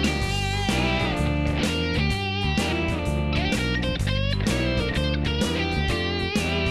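Upbeat instrumental backing music led by electric guitar, with a steady beat and bass.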